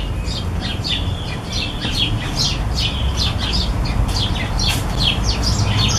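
Small birds chirping in quick short calls, several a second, over a steady low rumble.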